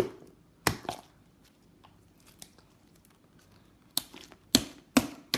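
Thick, sticky butter slime being pulled and peeled off hands, giving short sharp sticky snaps and tearing crackles: three in the first second, then a quicker run of four near the end, with quiet between.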